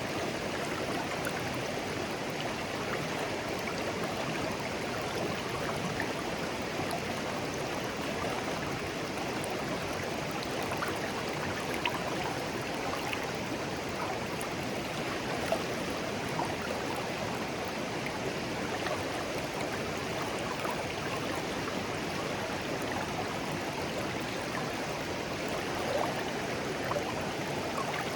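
Shallow clear stream flowing steadily over stones, a continuous babble of water with small scattered splashes and trickles.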